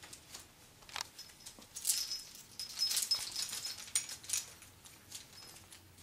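African grey parrot playing in the hanging toys of a play gym: irregular clicks, rattles and jangling of plastic links and toy parts, busiest in the middle seconds, with a few short high tones among them.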